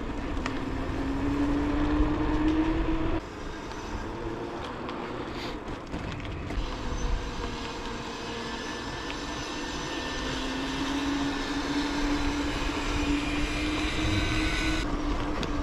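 Riding noise from a moving mountain bike: a steady tyre hum on pavement that slowly rises in pitch as the bike picks up speed, over a rough rumble. The noise drops suddenly about three seconds in, and the hum returns later.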